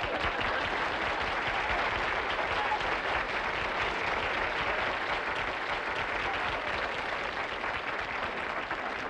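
Studio audience applauding: a dense patter of many hands clapping that eases off near the end.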